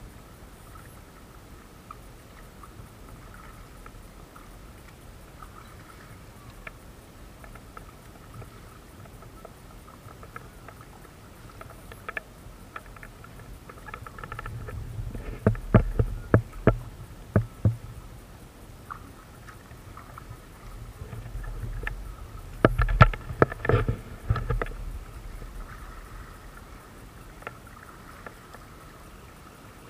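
Tandem plastic sit-on-top kayak being paddled: two clusters of sharp knocks and splashes from the paddles striking the water and the hull, about 15 and 23 seconds in, over a faint steady high hum.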